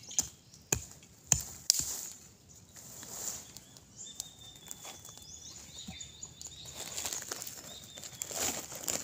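A small hand blade striking into the soil in four sharp chops in the first two seconds, followed by softer scraping and digging. Near the end, dry grass and leaves rustle as they are handled.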